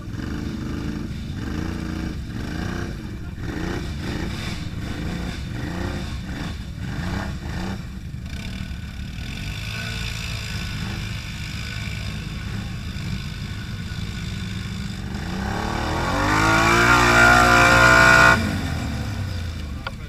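ATV engine stuck in a deep mud rut, revved up and down in short blips, then revved hard, rising in pitch and held high for a couple of seconds before dropping off suddenly near the end.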